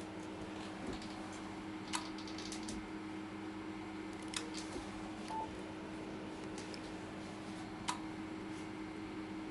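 Radio transceiver and linear amplifier setup: a few sharp clicks and one short beep about five seconds in, over a steady low hum from the equipment.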